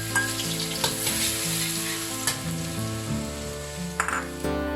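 Chopped garlic sizzling as it fries in hot oil and pork lard, stirred with a spatula that clicks now and then against the pan.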